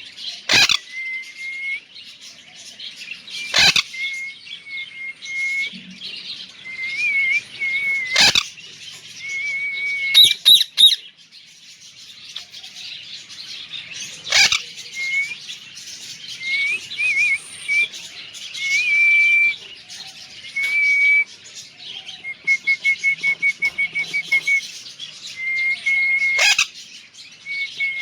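Pet parrot chirping and whistling: short high whistled notes, some held steady and some wavering, and near the end a quick run of about a dozen rapid chirps, over dense high bird chatter. A few sharp, loud cracks stand out several times.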